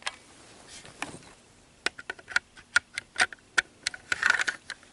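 Small plastic clicks and rattles of Lego pieces being handled as a single round is loaded into a brick-built Mauser C96 pistol. There are about a dozen sharp separate clicks in the second half, with a brief scraping rustle near the end.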